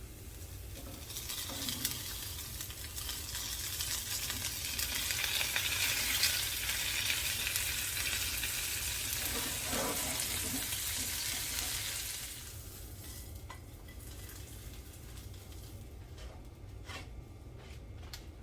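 Food sizzling in a frying pan, a cheese wrap frying in butter spray, building up and then dropping off sharply about two-thirds of the way through, followed by a few light clicks.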